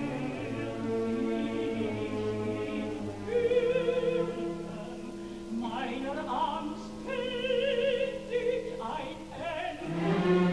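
A woman's operatic voice singing two phrases with a wide vibrato over a sustaining orchestra, heard as a live broadcast recording.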